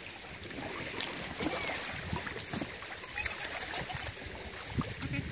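Shallow water sloshing with small irregular splashes as a dog is led off an air mattress into the water and people and dogs wade around it.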